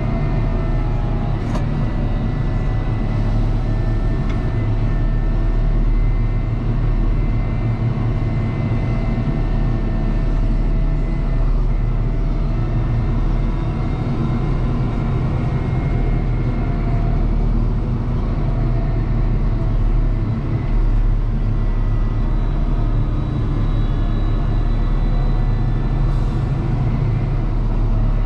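Deutz-Fahr 6185 TTV tractor's six-cylinder diesel running steadily under load, heard from inside the cab, while pulling a Samson PG18 slurry tanker. It is a low, even drone with a faint whine above it.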